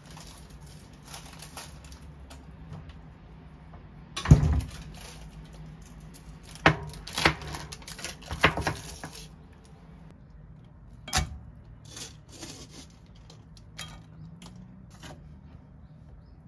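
Kitchen handling sounds: a heavy thump on the counter about four seconds in, then a plastic bag of bean sprouts crinkling and rustling with sharp clicks for several seconds, and a single sharp knock later, over a faint steady low hum.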